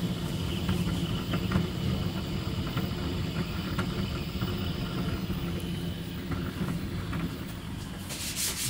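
DeltaMaker delta 3D printer running mid-print: its stepper motors and effector cooling fan make a steady mechanical hum as the print head moves. A rubbing noise starts near the end.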